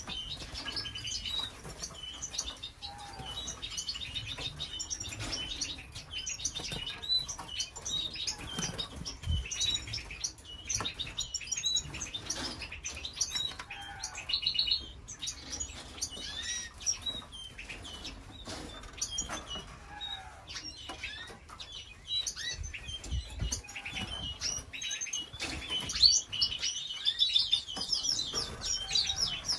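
Canaries in breeding cages chirping and calling, with short rapid trills now and then and the flutter of wings as they hop between perches.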